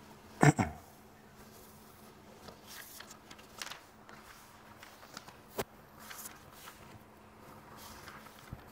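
Handling noise at a table: two sharp knocks about half a second in, a click a little past the middle, and soft rustling in between.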